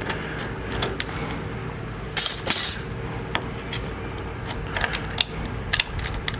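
Small metal clicks and clinks of hand tools and bolts as handlebar clamp bolts are loosened and backed out on a motorcycle, with a brief scraping burst a little over two seconds in.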